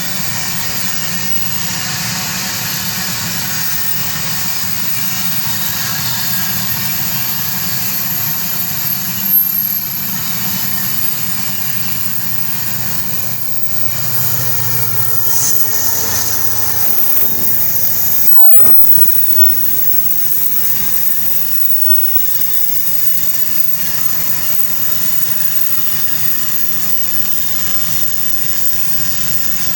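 Iron ore train's freight wagons rolling past on the track: a steady rumble and rail noise with a thin high wheel squeal.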